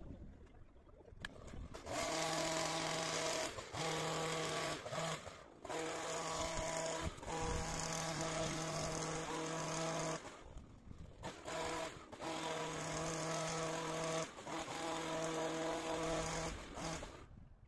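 Hedge trimmer cutting along the top of a hedge, running in bursts of one to four seconds at a steady pitch with brief pauses between them, starting about two seconds in and cutting off just before the end.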